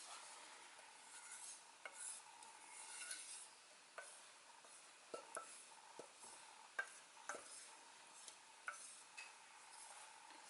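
Faint clinks and light scraping of kitchenware, a dozen or so scattered clicks, over a faint steady hum.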